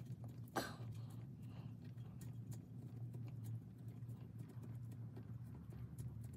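Faint, irregular small metallic clicks and taps as the two 8 mm mounting bolts of a timing chain tensioner are threaded in by hand, with one sharper click about half a second in. A steady low hum runs underneath.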